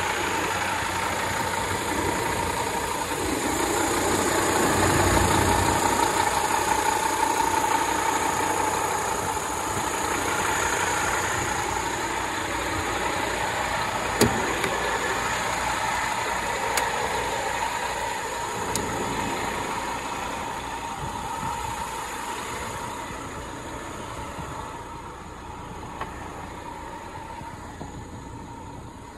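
Scania P230 refuse truck's diesel engine idling steadily, with a sharp click about 14 seconds in as the cab door handle is pulled. The engine grows fainter toward the end.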